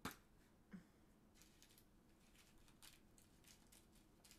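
Small clear plastic storage box handled: a sharp click at the start and a smaller knock just after, then faint, scattered light ticks from the box and the tiny resin diamond-painting drills inside it.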